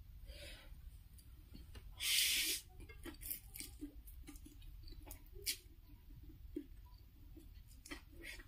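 Close-up eating of stir-fried instant noodles: a loud slurp lasting about half a second, about two seconds in, then wet chewing and lip smacks with light clicks.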